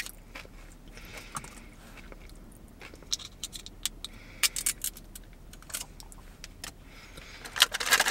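Close-up chewing of a crunchy fried onion ring: irregular crisp crunches and small mouth clicks, growing louder near the end.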